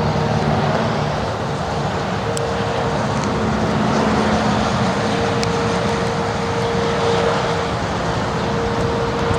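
Distant outdoor warning sirens sounding a steady tone that swells and fades, under the steady hiss of pouring rain.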